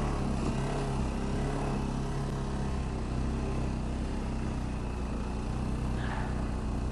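ATV engine running steadily, holding an even speed.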